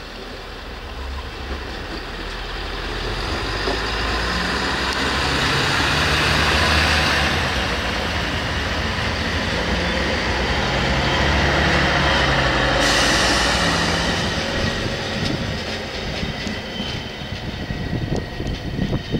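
Bombardier Talent diesel railcar passing: wheel-on-rail noise over the low hum of its underfloor diesel engines. It grows louder as the train comes closer, stays loud for several seconds in the middle, then fades as it moves away.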